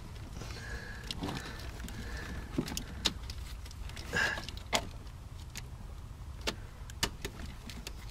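Scattered light clicks and knocks with a few brief squeaks: hands working a plastic O2 sensor wiring connector onto its flat metal retainer tab in an engine bay. A steady low hum runs underneath.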